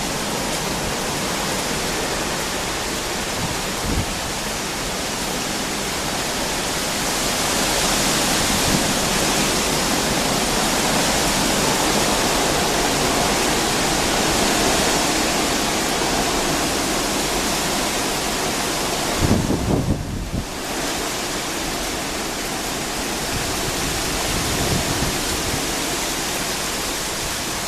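Hurricane wind blowing hard, a steady rushing noise that swells and eases. A few low thumps and a brief lull come about two-thirds of the way through.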